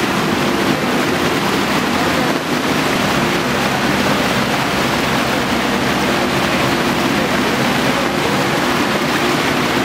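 Muddy flash-flood water, thick with stones and debris, rushing steadily across open ground, with a backhoe loader's engine running evenly underneath.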